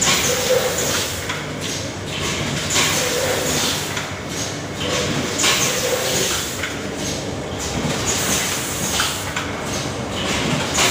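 Automatic rotary pre-made zipper pouch packing machine running: a steady mechanical clatter, with a burst of pneumatic air hiss about every second and a half as its air cylinders cycle through each pouch station.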